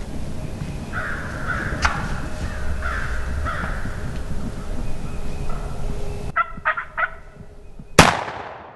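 Wild turkey gobbler gobbling in several rattling bursts. About eight seconds in comes one loud shotgun blast that rings off quickly.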